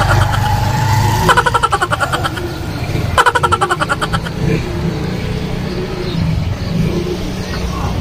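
A motor vehicle's engine running in the street, with a rapid rattling pulse that comes and goes in three spells of about a second each in the first half.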